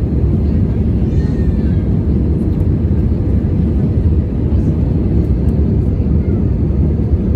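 Steady low noise of an airliner's engines and rushing air, heard from inside the cabin during the climb after takeoff.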